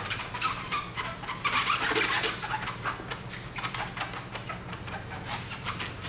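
An applicator rubbing across a plastic headlight lens as Opti Guard coating is wiped on, giving a run of short, irregular squeaks and scrubbing strokes.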